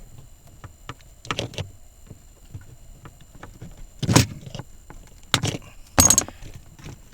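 Wire cutters snipping through the wires of the blower motor resistor's wiring pigtail: four sharp snips, the loudest about four seconds in, with light clicks of handling between.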